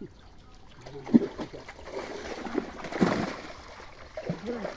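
Pond water splashing and sloshing irregularly, with sharper splashes about a second in and again near three seconds.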